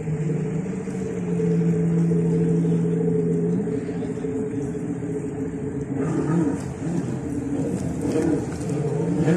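Several jet ski engines running on the water, a steady drone that rises in pitch a few seconds in. In the second half several engines rev up and down at once, their pitches crossing.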